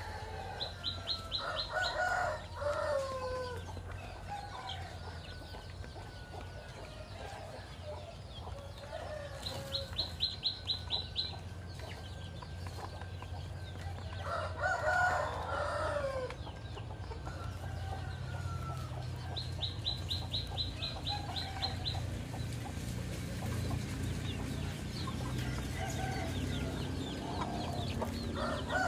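Rooster crowing three times, about a dozen seconds apart, each crow lasting a second or two and dropping in pitch at the end. In between, a high, rapid ticking series comes three times, over a steady low hum.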